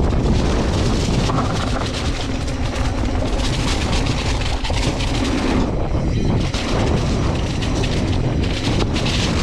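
Mountain bike descending a leaf-strewn dirt flow trail: steady wind rush over the microphone and rumble of the tyres on dirt, with frequent clicks and rattles from the bike over bumps.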